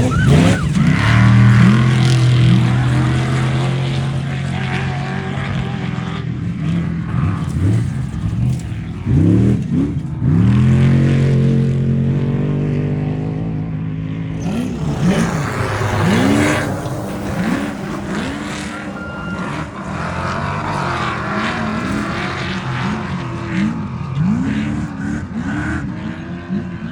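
Off-road race vehicles' engines revving hard as they pass. Two long stretches are held at steady high revs, starting about a second in and again around ten seconds in. In between and through the second half, the pitch climbs and drops over and over as the throttle is worked.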